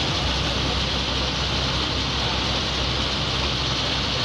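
MSRTC bus's diesel engine running steadily under way, heard from the driver's cabin, a low drone with a hiss of road and body noise above it.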